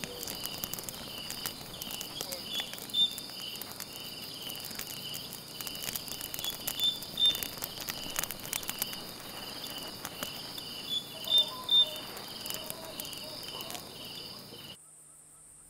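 Night insects chirping in a steady pulsing chorus, with the crackles and sharp pops of a wood campfire scattered through it. The sound cuts off shortly before the end.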